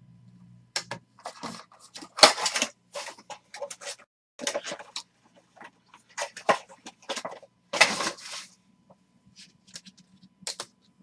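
Trading cards and pack wrappers being handled: a string of short, irregular rustles and crinkles.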